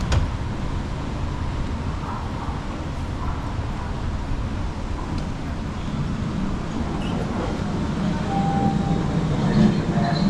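Low rumble of an MBTA Red Line subway train echoing through the underground station, growing louder near the end, with a brief high tone about eight seconds in.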